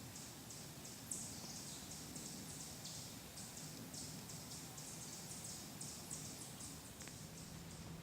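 Insects chirping in a steady high-pitched rhythm, about three or four chirps a second, with a faint low hum underneath.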